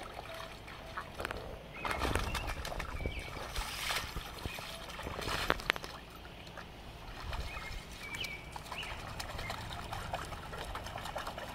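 Shallow water sloshing and splashing as a dog wades through it and a person shifts about in it, with a few short bird chirps in the background.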